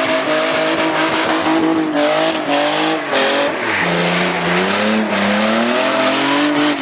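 BMW engine revving hard during a burnout, with the tyres squealing against the pavement. The revs drop about three seconds in, then climb back up.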